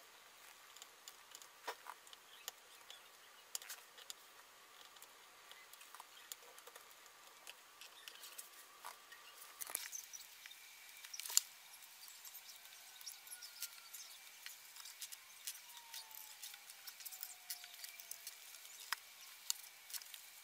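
Faint, rapid scattered clicks and taps of a screwdriver and hands working the screws of a laptop's base cover, played back sped up. A faint steady hum underneath jumps to about twice its pitch about halfway through as the playback speeds up further.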